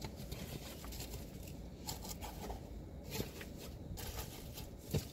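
Faint handling of paper and packaging: a few light rustles and soft taps over a low, steady room hum.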